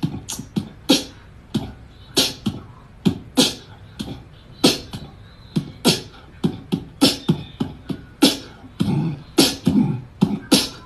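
Beatboxing: mouth-made hissing hi-hat strokes and low kick thumps in a quick, uneven beat, two or three hits a second.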